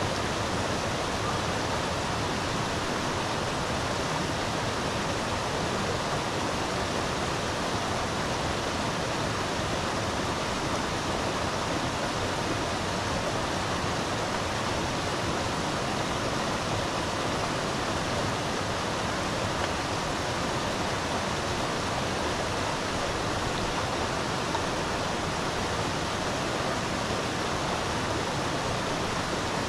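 Steady rush of a flowing river, an even noise that does not change.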